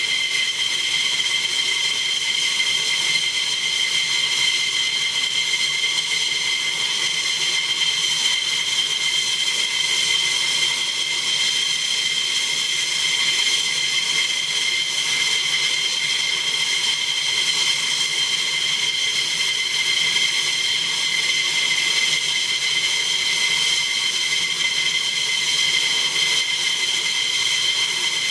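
F-15E Strike Eagle's jet engines idling: a steady high-pitched whine over a rushing hiss.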